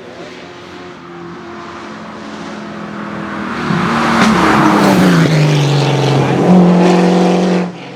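Hillclimb race car coming up the road under hard throttle and passing close by, its engine growing loud about halfway through. The engine pitch slides down, then jumps up with a gear change, and the sound cuts off suddenly near the end as the car goes out of earshot.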